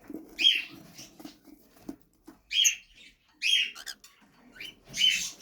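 Cockatiels giving short, harsh calls, about four in a few seconds with quiet gaps between.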